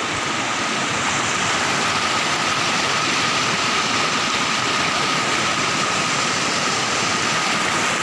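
Rushing water of a forest stream cascading over boulders in a small waterfall, a loud steady wash of white water mixed with heavy rain. A thin steady high tone sounds under it.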